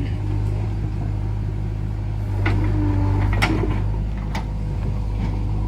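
JCB 3DX backhoe loader's diesel engine running steadily under work, getting louder for a second or two about halfway through, with a few sharp knocks.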